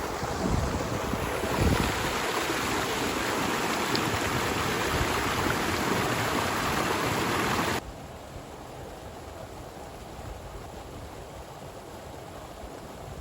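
Steady rush of fast-flowing water from a river swollen by heavy rain. It drops off suddenly a little over halfway through, leaving a fainter rush.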